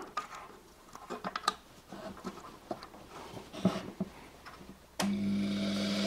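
Light clicks and scratches of a wiring harness plug being handled at a washing machine motor, then about five seconds in a click and a steady hum as the carbon-brush motor starts running on the bench test rig, now turning anti-clockwise.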